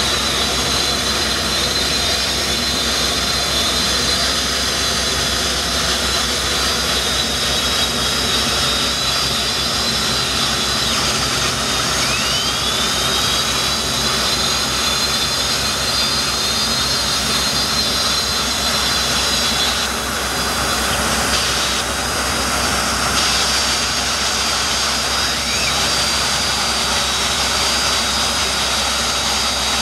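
Turbine engine of a Mystic racing powerboat idling at docking speed: a steady jet-like whine with a high whistle. The whistle breaks off about eleven seconds in and rises back up in pitch a second later as the turbine spools up.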